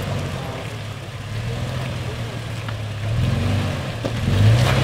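Toyota FJ Cruiser's 4.0-litre V6 engine running at low revs under load as it crawls over a rock ledge. The engine note swells a little past three seconds and again near the end as throttle is added.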